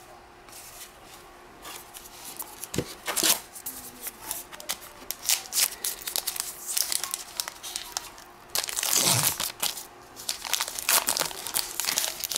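Wrapper of a Topps Heritage baseball card pack being torn open and crinkled by hand. The rustling starts after a quiet second or so and comes in irregular bursts, loudest about three seconds in and again around nine seconds.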